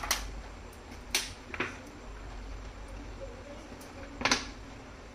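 Gas stove being lit: a few sharp, isolated clicks, the loudest a double click about four seconds in, over a low steady hum.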